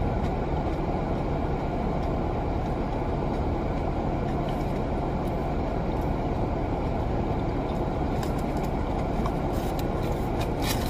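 Steady hum and rush of car cabin noise: the engine idling with the air conditioning fan running. A few faint clicks near the end.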